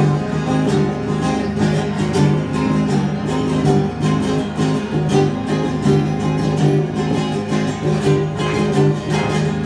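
Live band music with no singing: a strummed acoustic guitar and an electric guitar playing the instrumental ending of a rock song at a steady beat.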